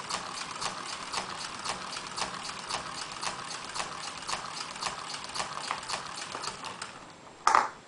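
Lego Technic pneumatic engine running: its cylinders and valve click about four times a second over a steady hiss of air, dying away about seven seconds in. A brief loud burst of sound follows near the end.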